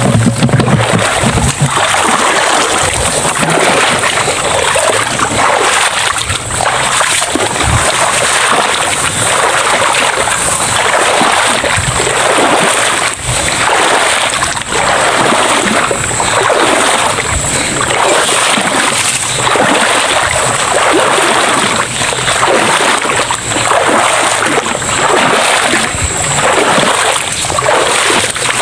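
Wading footsteps sloshing through shallow swamp floodwater and long grass, a splashing swish about every second and a half, over a steady high-pitched hum.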